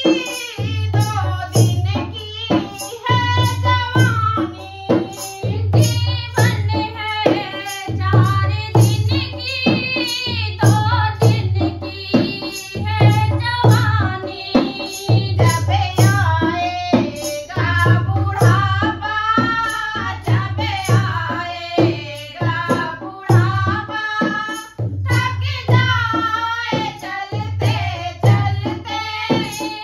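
Two women singing a Hindi nirgun bhajan, accompanied by a dholak drum played in a steady rhythm, with a plastic hand clapper clacking along.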